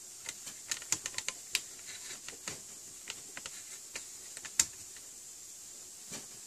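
A string of irregular sharp clicks and taps, bunched in the first second and a half, with the loudest single click a little past the middle, over a faint steady high whine.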